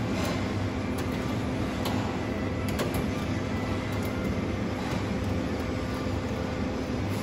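Steady mechanical hum from kitchen equipment, with a few faint light ticks as a long doner knife slices beef from the upright doner cone.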